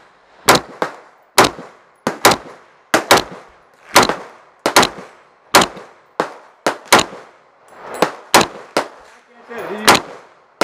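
KelTec PLR-16 pistol in 5.56 firing semi-automatically: about twenty sharp shots in quick, uneven succession, each ringing out with a short echo.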